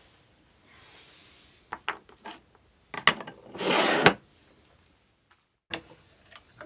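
Workshop handling noises: several light clicks and knocks, a short scrape or rub of about half a second midway, then another knock near the end.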